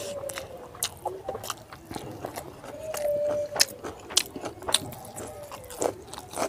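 Close-up mouth sounds of eating rice and pork curry: wet chewing with many sharp lip-smacking clicks. A short steady hum sounds near the start and again about three seconds in.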